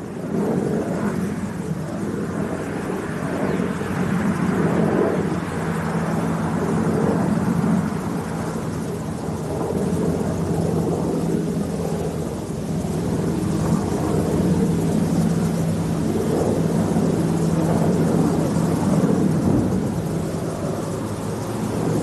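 Loud, steady low rumble with a droning hum that swells and fades several times; no sharp blasts stand out.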